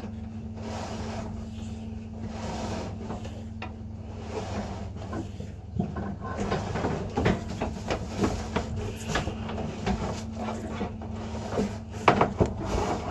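Drain inspection camera rig being worked: irregular knocks, clicks and rubbing as the push rod is fed down the pipe, growing busier and louder from about six seconds in, over a steady low electrical hum.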